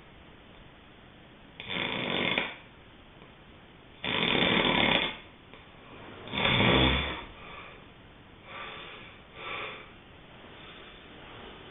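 Someone asleep and snoring: three loud snoring breaths about two seconds apart, then two shorter, fainter ones.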